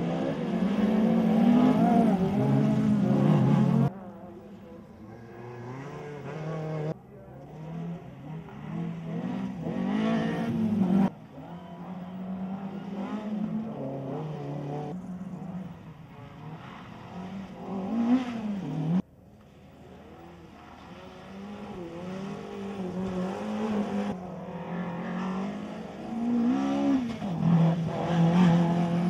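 Rally car engines revving hard as the cars pass one after another, the revs rising and falling. The sound is a string of short clips that cut off abruptly every few seconds.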